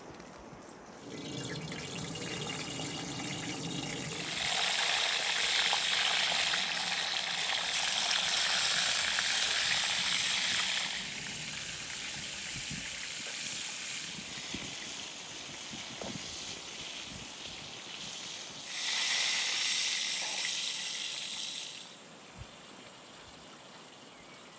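Oil poured from a clay jug into an aluminium frying pan. Two longer spells of loud gushing, rushing noise follow, one from about four seconds in lasting six or seven seconds and a shorter one near the end.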